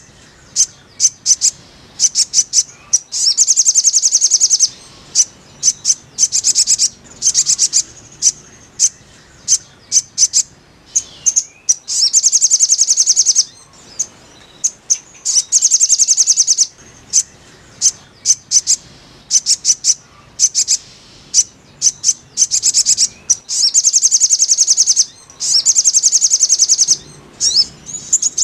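Little spiderhunter (sogok ontong) song: fast trills of high, rapidly repeated notes, each run lasting a second or two, with short single chips between the runs.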